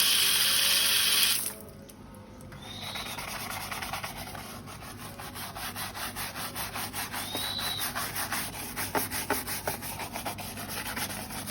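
Tap water running for about the first second and a half, then cut off; after a short pause, rhythmic rubbing strokes, several a second, as a large Sumatran tortoise (Manouria emys) is scrubbed clean in its bath.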